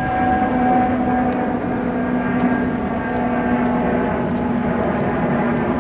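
A steady mechanical drone with a constant-pitch hum that holds the same note throughout, with a few faint clicks on top.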